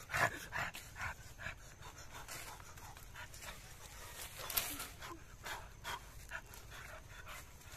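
Short, irregular breathy puffs, two or three a second, the strongest just after the start.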